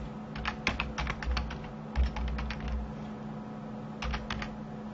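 Typing on a computer keyboard: a quick run of key clicks through about the first three seconds, a pause, then a few more keystrokes about four seconds in. A faint steady hum sits underneath.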